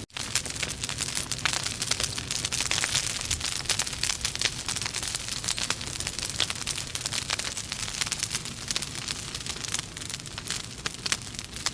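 Wood logs burning in a fireplace, crackling and popping continually over a steady hiss of flame. The sound cuts out for an instant right at the start.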